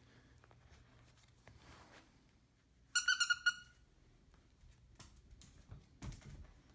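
Squeaky cheeseburger dog toy squeaked in a rapid run of about six short, high squeaks, about three seconds in. Faint taps follow near the end, from the puppy's paws on the hardwood floor.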